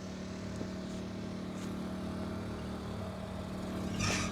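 Vehicle engine running steadily at low speed, a low even hum; a brief rustle about four seconds in.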